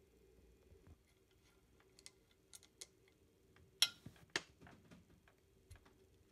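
Irregular light clicks of M&M's candies against a ceramic serving dish as they are picked through by hand, the two loudest clicks about half a second apart near the middle.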